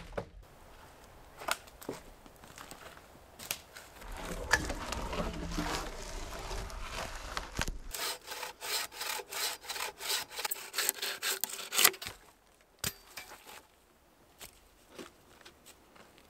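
A hand saw cutting wood in quick, even strokes, about four a second, for a few seconds in the middle. Before it comes scraping and handling of the wood, and after it a few scattered knocks.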